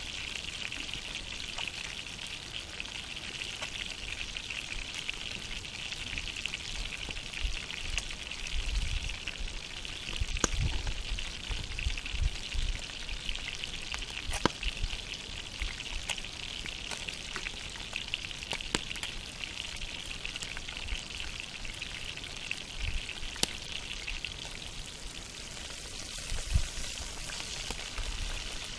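Fish frying in hot fat, a steady sizzling hiss with a few sharp crackles along the way.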